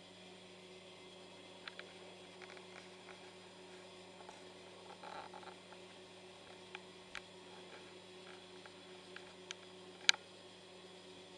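Steady low electrical hum with scattered light clicks and rustles, and one sharper click about ten seconds in.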